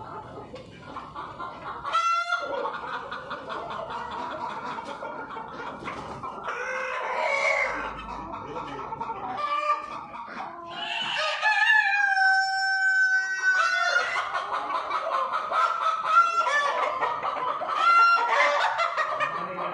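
A flock of Australorp chickens clucking and calling without a break, with a rooster giving one long crow that lasts about three seconds, starting around eleven seconds in. Shorter squawks come a few times.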